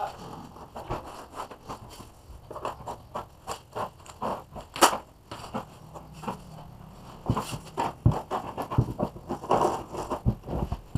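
Irregular scraping, rustling and clicking from gloved hands handling and routing a thin white cable along a wall corner, with one sharper click about five seconds in.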